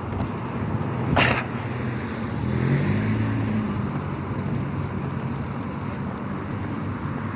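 Wind noise on the microphone with a passing road vehicle's engine humming, loudest about three seconds in; a short sharp noise a little after one second in.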